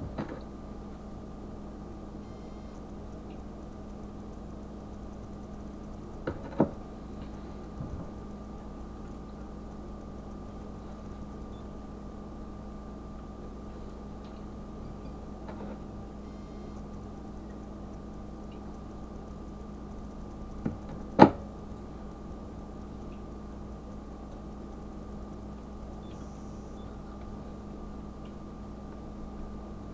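Steady electrical hum with a low pitch and a fainter higher one. A few soft knocks come about six seconds in, and one sharper knock comes about twenty-one seconds in.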